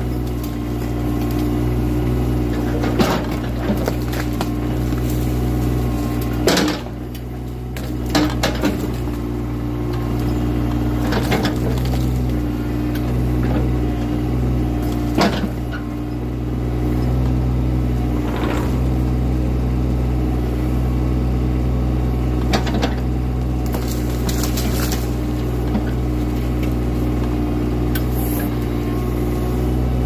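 Excavator's diesel engine running steadily under load, with repeated sharp cracks and snaps of branches and brush breaking as the arm pushes into the hedge and trees.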